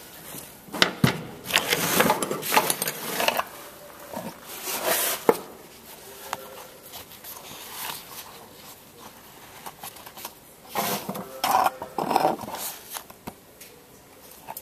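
Irregular clinks, knocks and rustling of things being handled, in bursts from about one to three seconds in, around five seconds, and again about eleven to thirteen seconds in.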